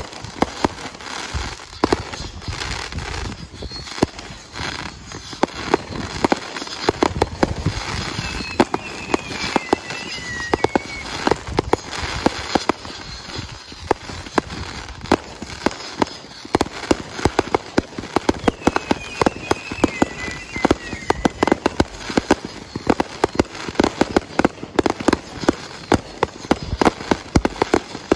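Fireworks cakes firing nonstop: a dense run of bangs and crackling bursts, many shots a second. Twice, a wavering high whistle sounds over the firing.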